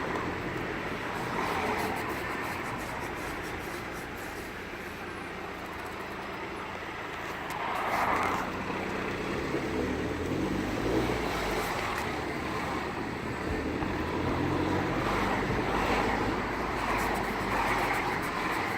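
Squeaky, grinding noise from the near-side rear wheel of a BMW E87 118d on the move, in sync with wheel rotation. It swells and fades over the car's road and engine rumble and is loudest about eight seconds in and near the end.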